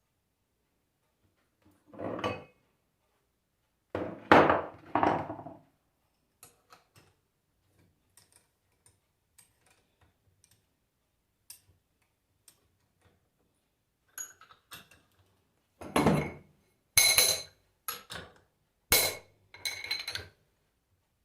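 Metal knocks and clinks of hand tools and alternator parts being handled and struck on a workbench. There are a few separate knocks in the first five seconds, light scattered ticks in the middle, and a quicker run of sharper knocks over the last five seconds.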